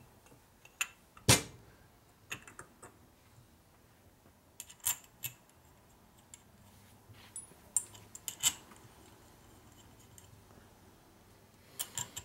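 Metal parts of a Harley-Davidson 4-speed transmission's ratchet lid clicking and clinking as they are handled, with one louder knock about a second in and small clusters of clinks now and then.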